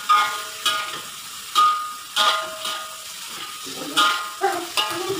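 Metal spatula and ladle clanking and scraping against a wok as shredded cabbage is stir-fried, about two strokes a second with a short pause midway, each stroke ringing briefly. Under it the cabbage sizzles in the hot oil.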